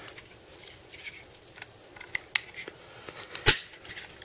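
Small clicks and handling noise as the legs of a CM Storm Skorpion mouse bungee are pushed back into its body, with one louder knock about three and a half seconds in.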